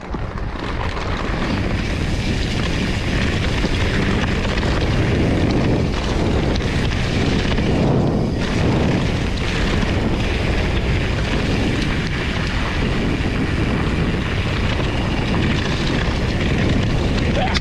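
Wind buffeting the microphone and the rolling rumble of a fat-tyre mountain bike on the trail. The noise is steady, with a brief lull about eight seconds in.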